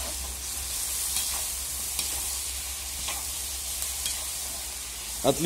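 Lamb pieces sizzling as they brown in hot oil in a cast-iron kazan for plov, stirred with a metal skimmer that scrapes lightly against the pot a few times.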